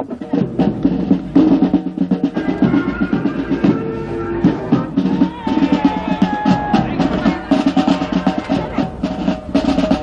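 Parade band music driven by drums: rapid snare drum rolls and bass drum beats under a sustained melody.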